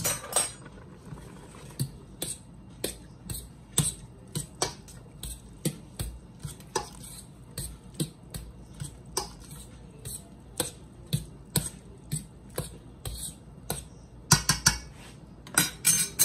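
A spoon clinking against the side of a stainless steel soup pot about twice a second as egg drop soup is stirred, with a busier clatter of utensils near the end.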